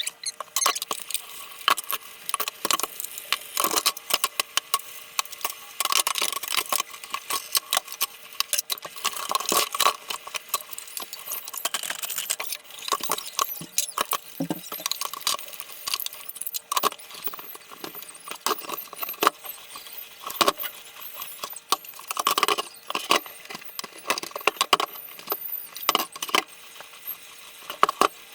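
Irregular clinking, knocking and rattling of containers and fridge shelves being handled as a fridge is washed and restocked, over a faint steady hum.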